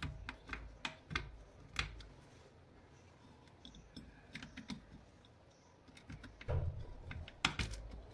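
A small screwdriver clicking and scraping on a screw as it is driven into the weight plate of an electric iron, with scattered light metallic taps. There are louder knocks and handling noise from the iron near the end.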